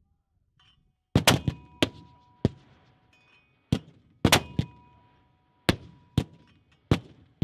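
Mortars firing: about ten sharp reports in quick succession, some a fraction of a second apart, several followed by a brief metallic ringing.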